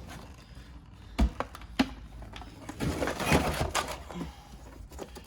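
Tools being handled and rummaged through: a few sharp knocks a little over a second in, then a brief rustling clatter about three seconds in.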